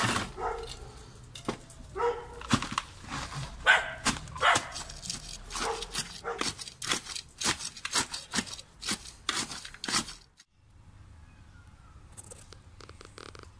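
A thin rod jabbed again and again into gritty bonsai soil mix in a terracotta pot, a run of sharp crunching stabs that settles the soil around the newly potted stump. The stabs stop about ten seconds in.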